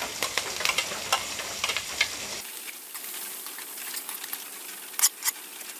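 Chopped onion, garlic and chillies sizzling in hot oil in an aluminium kadai, stirred with a metal spatula that clicks and scrapes against the pan. The clicks come thick in the first two seconds or so, with two more sharp ones near the end.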